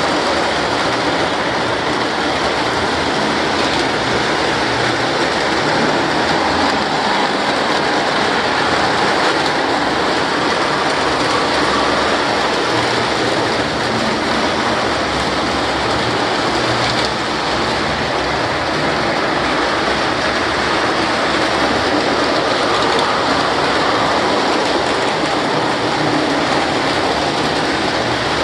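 O-gauge electric model trains running on their track: a steady rattle and rumble of wheels on rail and electric motors.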